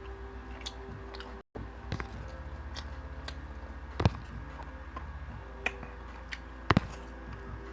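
Close-miked chewing of beef chunks and gravy-soaked rice, with wet mouth smacks and a few sharp clicks, the loudest about four seconds and nearly seven seconds in.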